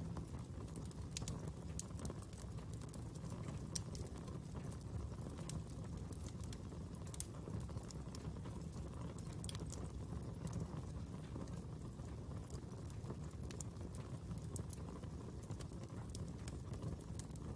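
Fire crackling: scattered sharp pops and snaps over a steady low rumble of burning flames.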